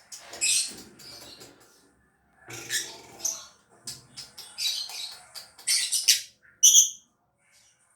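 Lovebird calling in short, harsh chattering bursts with pauses between them, then a few short, clear high chirps near the end.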